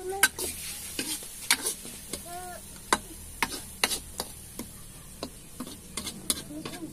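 A metal ladle stirring food in a karahi, scraping and knocking against the pan in irregular sharp clicks, over a faint steady frying sizzle.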